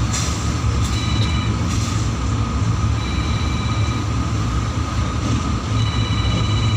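Passenger train running on rails, heard from inside the carriage at an open window: a steady low rumble with a thin high ringing that comes and goes three times.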